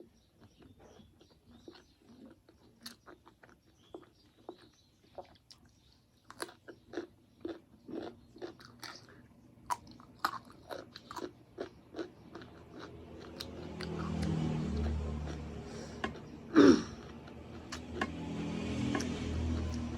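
Close-miked chewing of a meal of buffalo meat curry, rice and pickles: many small wet mouth clicks and crunches. In the last third the eating sounds grow louder and fuller, with a low hum, and one sharp louder sound about three-quarters of the way through.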